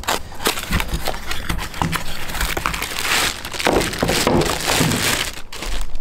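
Paper or thin cardboard packaging being handled and opened by hand: a dense crinkling rustle with many small clicks and crackles.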